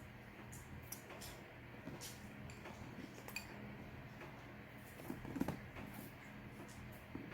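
Faint scattered clicks and light taps over a low room hum, with a slightly louder soft knock about five seconds in.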